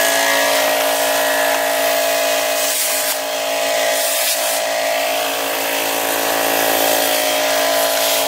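Air compressor motor running with a steady, even drone of several pitched tones. Two short hissing squirts from a spray bottle of soapy water, wetting the tire bead, come about three and four seconds in.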